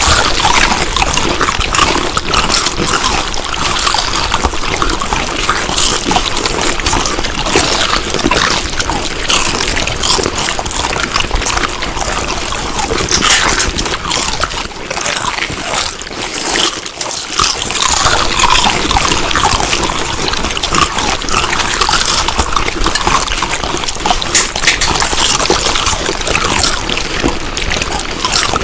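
Someone chewing food close to the microphone: a continuous, dense run of small crackles and mouth clicks, briefly quieter about halfway through.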